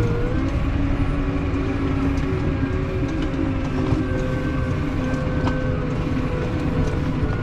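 Case IH tractor engine running steadily at about 1200 rpm, heard from inside the cab as a constant drone, with scattered light clicks and rattles as the tractor rolls over rough, rutted ground.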